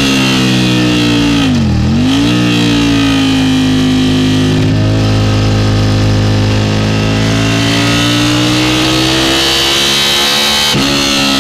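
Aprilia sportbike engine at speed, heard from onboard. The revs drop sharply and pick straight back up about two seconds in, then hold high, sagging slowly and climbing again toward the end.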